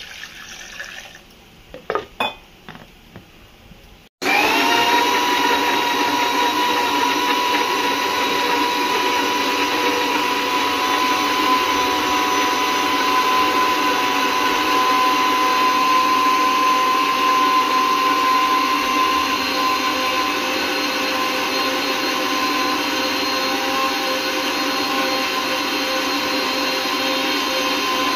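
Water poured into a blender jar of chopped carrots, with a few light clicks. About four seconds in, a mixer grinder starts abruptly and blends the carrots and water into juice. Its whine rises briefly as the motor comes up to speed, then holds steady.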